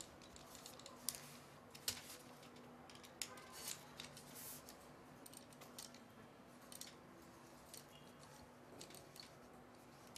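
Faint clicks and scrapes of a small hex key turning screws in the clamps of a carbon-fibre gimbal frame, with a few sharper clicks in the first four seconds.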